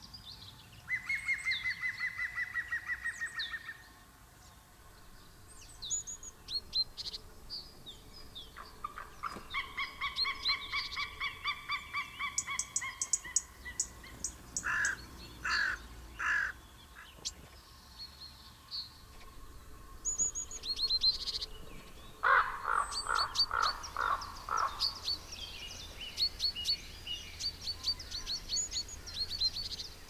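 Wild birds calling: a rapid chattering rattle near the start and again around a third in, groups of harsh repeated calls around halfway and after two-thirds, and high thin chirps and song phrases of small songbirds throughout.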